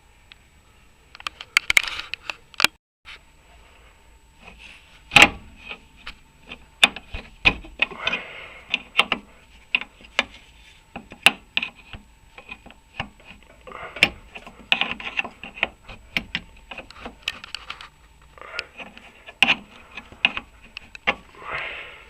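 Wrenches and metal tools working on the rear trailing arm bolts, giving irregular metallic clinks and sharp knocks with bits of scraping, the loudest knocks about five and seven and a half seconds in.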